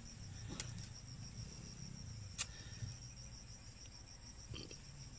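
Steady, high-pitched insect trill, finely pulsed, with a couple of faint clicks.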